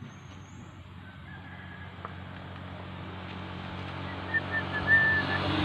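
A road vehicle approaching on the adjacent road, its engine and tyre noise growing steadily louder. A few short high notes sound about four to five seconds in.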